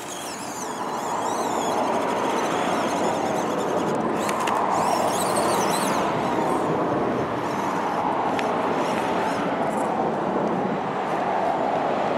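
Axial SCX10 II RC crawler's brushed 550 motor and gear drivetrain whirring under throttle as the truck crawls up a rock, the whine drifting slightly in pitch and getting louder over the first second or two.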